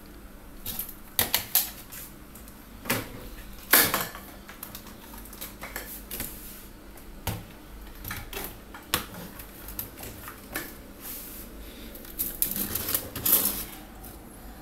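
Scattered sharp clicks and knocks of plastic electrical fittings being handled on a tabletop, the loudest about four seconds in, with a quick run of clicks near the end as a plug is worked into a plastic extension socket board.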